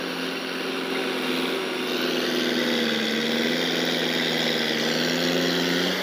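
D-50 crawler bulldozer's diesel engine running steadily as the dozer pushes earth with its blade, its note dipping slightly in pitch about halfway through before settling.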